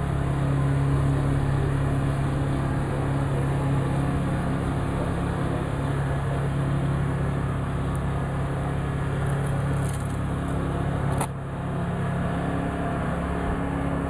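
A steady low hum of running machinery, with one sharp click about eleven seconds in.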